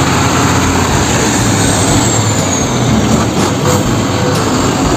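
Large truck engine running steadily, loud and even throughout.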